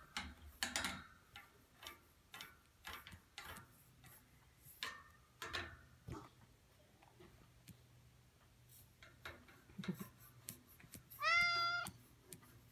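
Back scratcher scratching a cat through a wire cage, heard as a string of short scratchy strokes and clicks. Near the end the domestic cat gives one short meow, the loudest sound here.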